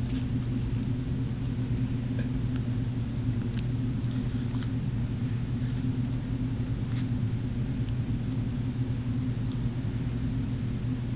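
A steady low hum, with a few faint short crunches over it as a dachshund bites and chews pieces of apple.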